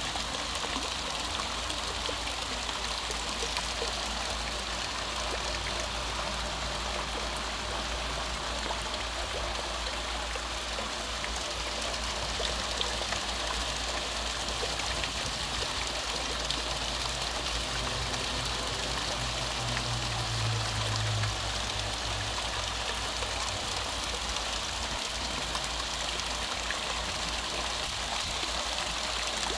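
Water jets of an ornamental fountain splashing steadily into its basin.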